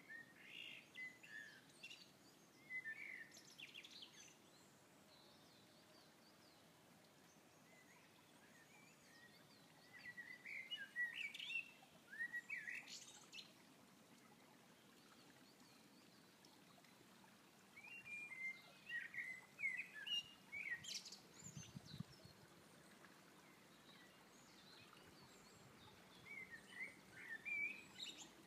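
Eurasian blackbird singing: four fluted, warbling phrases several seconds apart, each a couple of seconds long and ending in a high squeaky twitter.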